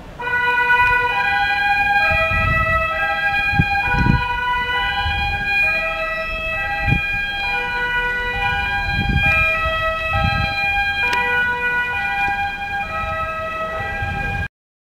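A Dutch emergency vehicle's two-tone siren, alternating steadily between a high and a low note. It starts just after the beginning and cuts off suddenly near the end.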